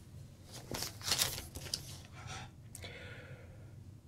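Clear plastic outer sleeve and cardboard LP jacket crinkling and rustling in the hands as the record is turned over, in a few short bursts, loudest about a second in.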